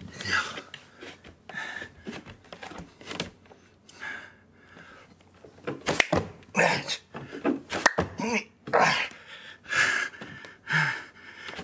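Clap push-ups on a wooden floor: hard breathing and effortful grunts, with sharp hand claps and slaps of palms landing on the floor about 6 and 8 seconds in.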